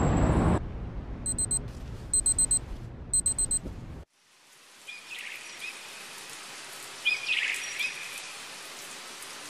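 Electronic alarm clock beeping in three quick bursts of high, rapid beeps over a low city hum. The hum cuts off just after 4 seconds, then birds chirp now and then over a soft outdoor hiss.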